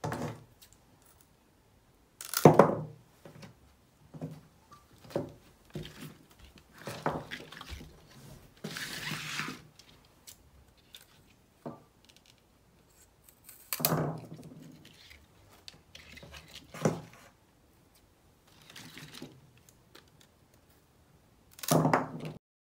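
Florist's scissors snipping through thick, juicy tulip stems: several sharp crunchy cuts spaced a few seconds apart, with light knocks and a brief rustle of stems and leaves being handled on a tabletop.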